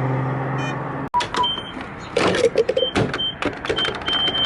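Car engine droning steadily inside the cabin, cut off abruptly about a second in. After it come irregular clicks and knocks with several short high beeps.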